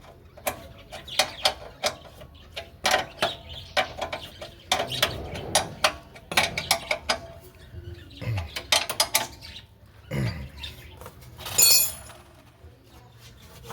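Spanner or ratchet clicking and metal tapping as a 14 mm nut is tightened on the rear brake rod of a Suzuki GS150R motorcycle, with irregular sharp clicks and a short louder rasp near the end.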